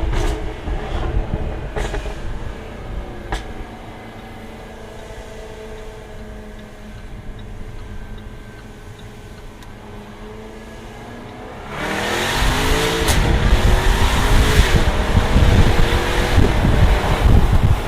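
Jaguar F-Type R's supercharged 5.0-litre V8 and exhaust heard from inside the car. A few sharp exhaust cracks come as the revs fall off, then it runs quietly at a steady low speed. About twelve seconds in it opens up into loud, hard acceleration with rising revs and another crack.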